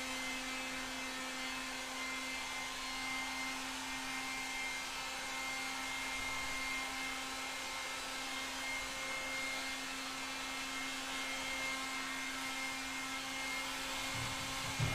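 Electric heat gun running steadily, its fan whirring with a constant motor hum, as it warms a creased steel car door panel so the dent can spring back out. A soft knock near the end.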